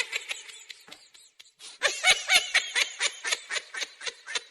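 High-pitched laughter in quick repeated 'ha' pulses: a bout fading out at the start, then a louder bout from about two seconds in that trails off into a few last gasps.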